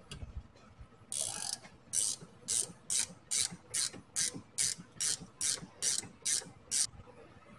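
Hand ratchet with a 19 mm socket worked back and forth to undo a nut on a front spindle: a short rattle of pawl clicks on each stroke, about a dozen strokes at a little over two a second, starting about a second in and stopping near the end.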